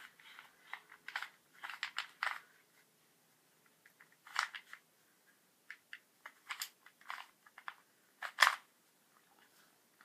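Plastic Rubik's cube being twisted by hand: short clicking, scraping turns of its layers in irregular clusters with pauses between them.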